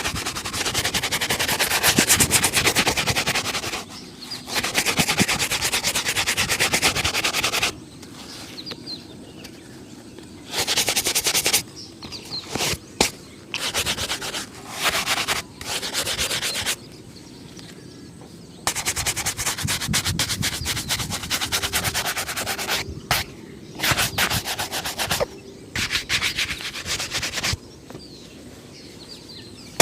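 Shoe-shine brush scrubbing rapidly back and forth over a leather shoe. It comes in runs of several seconds, with short pauses and a few quick bursts in between.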